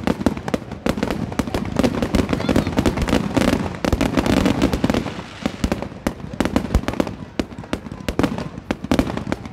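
Fireworks display firing: many shells bursting in quick succession, a dense, near-continuous string of bangs and crackles.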